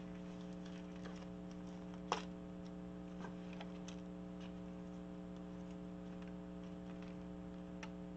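Light clicks and taps from hands handling ribbons and their cardboard holder on a craft desk, with one sharper click about two seconds in, over a steady low hum.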